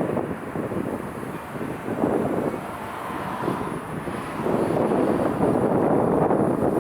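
Strong gusty wind buffeting the microphone over the drone of a jet airliner's engines, the gusts easing for a few seconds and picking up again about four and a half seconds in.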